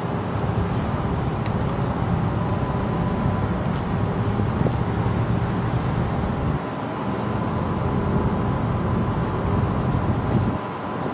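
Steady low rumble of a cargo ship's engines and machinery running as it berths, with a faint, thin steady whine above it.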